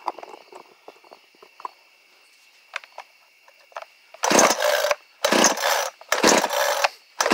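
Recoil starter of a brand-new 52cc Stihl-clone two-stroke chainsaw pulled about four times in quick succession, starting about four seconds in, cranking the cold engine on choke; light handling clicks before the first pull.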